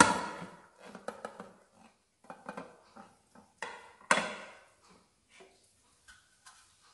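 Square metal cake tin knocking and clanking against a ceramic plate as it is turned over and lifted off the cake. Two louder clanks ring briefly, one at the start and one about four seconds in, with lighter knocks between.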